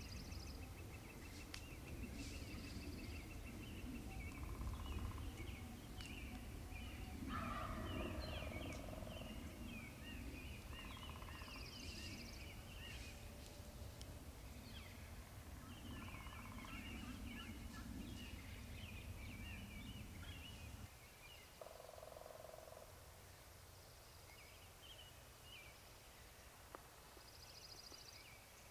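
Wild turkeys calling, with a louder call about eight seconds in, among many short chirping bird calls. A low steady rumble underneath drops away about 21 seconds in.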